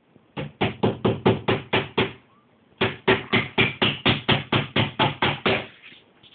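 Rapid, evenly spaced knocking, about four to five strokes a second, each stroke the same pitch: a run of about eight, a brief pause, then about a dozen more.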